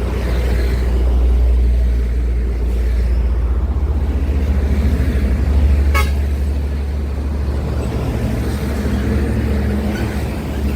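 Heavy road traffic: large truck engines rumbling low and steady as they pass, with one brief sharp click about six seconds in.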